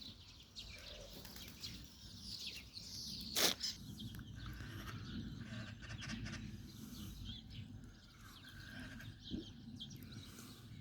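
Small songbirds chirping and twittering in many short, high calls over a steady low background rumble. A single sharp click stands out about three and a half seconds in.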